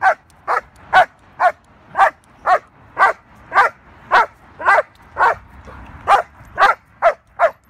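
Young female German Shepherd barking over and over, about two sharp barks a second with a brief pause partway through. This is protection-training barking at a decoy in a bite suit while she is held back on the leash.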